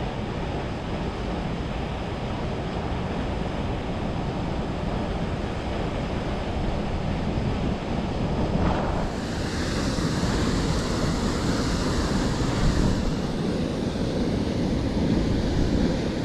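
Steady rush of a waterfall and the turbulent river water below it, with no pauses; about nine seconds in it turns brighter and a little louder.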